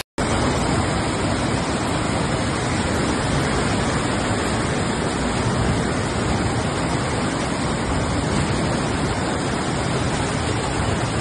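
Fast muddy floodwater rushing through a street in a steady, loud torrent.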